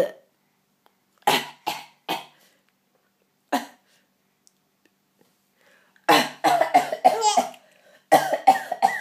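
A person coughing in short bursts: three quick coughs, then a single cough, then two longer strings of coughs near the end.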